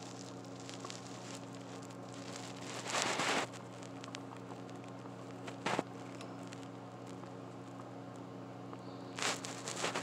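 Steady low electrical hum. Over it, a brief rustle about three seconds in, a sharp click near the middle, and another rustle near the end.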